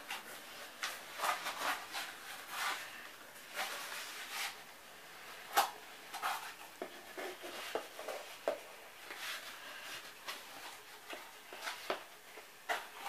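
Hands folding and rubbing a piece of corrugated cardboard: irregular scrapes and rustles, with one sharper crack about five and a half seconds in.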